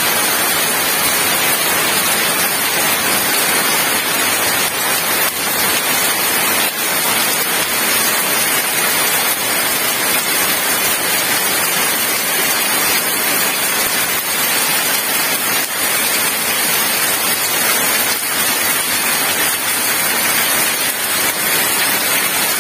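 Heavy rain pouring steadily onto a wet paved yard, an even, loud hiss that keeps up without a break.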